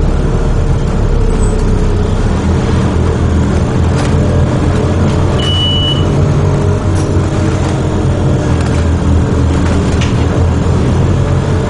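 Scania OmniCity single-decker bus under way, heard from inside: a steady diesel engine drone with rattles, its note rising and falling with speed. A short high beep sounds about five seconds in.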